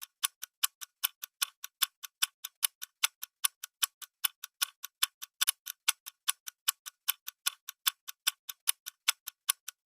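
Countdown-timer clock ticking sound effect: a steady train of sharp, even ticks, about five a second, counting down the 10-second answer time.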